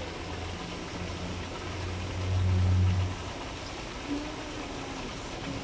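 Low, steady engine hum, swelling to its loudest between about two and three seconds in, then dropping away.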